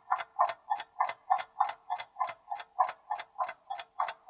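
Clock-ticking countdown timer sound effect: short, even ticks at about three a second.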